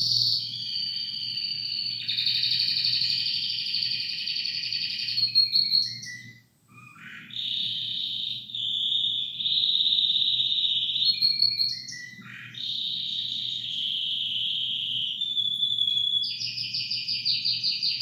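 Domestic canary singing in long runs of rapid trills and rolls, breaking off briefly about six and a half seconds in and again dipping around twelve seconds.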